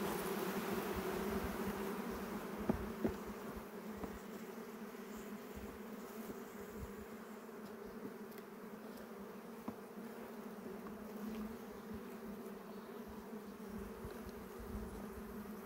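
Honeybee colony buzzing: a steady hum from an open hive, a little louder in the first couple of seconds, with a couple of light knocks about three seconds in.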